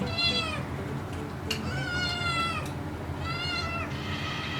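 Kitten meowing for food: four meows in a row, the second the longest, each falling in pitch at its end.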